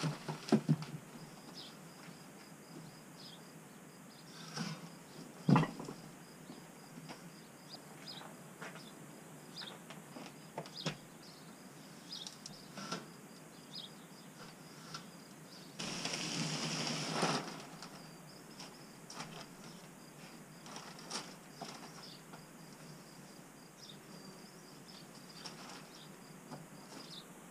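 Scattered knocks and clicks of hands working with hemp wool insulation in an attic, with one loud knock about five seconds in and a rustling rush lasting about a second and a half a little past the middle. Under them runs a steady faint high insect trill.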